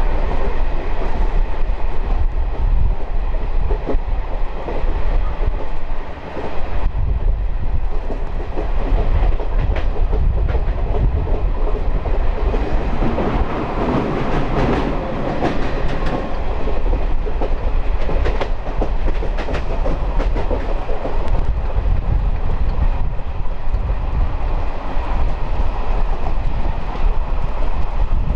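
DEMU diesel multiple-unit train running along the line, heard on board: a steady low rumble of wheels on rail with scattered clicks. It dips briefly about six seconds in.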